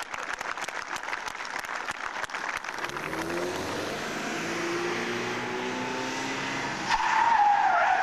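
Car engines revving as stunt-driven saloon cars accelerate, with a rapid crackling over the first few seconds. About seven seconds in comes a loud tyre squeal as one car slides.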